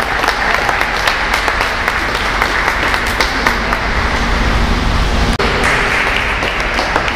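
Audience applauding, many hands clapping at once without a break.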